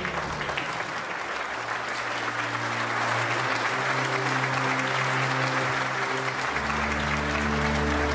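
A large crowd clapping, the applause swelling steadily, over film music with slow held chords.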